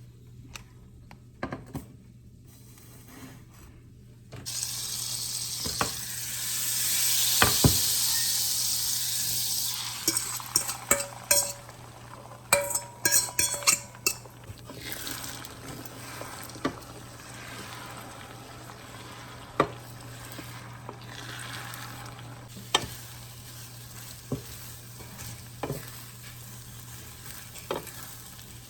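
Beaten eggs hit a hot frying pan and start sizzling suddenly about four seconds in, loudest for the next few seconds. A utensil then clinks and scrapes quickly against the pan as the eggs are stirred and scrambled, with a softer sizzle and occasional taps after that.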